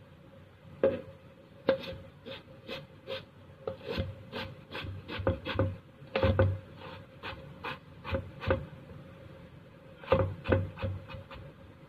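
Knife chopping stacked banana stem slices into small pieces on a chopping board: irregular sharp knocks, a few a second and sometimes in quick runs. A faint steady hum sits underneath.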